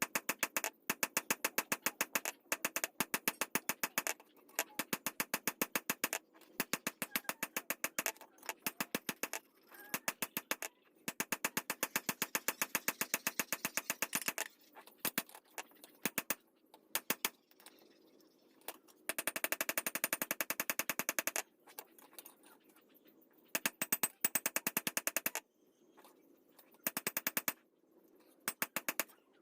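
Rapid, evenly spaced sharp taps, several a second, in runs of a few seconds with short pauses between them.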